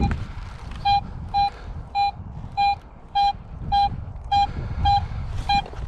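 Metal detecting gear sounding a target alert: a run of about nine short beeps at one steady pitch, evenly spaced a little over half a second apart, starting about a second in.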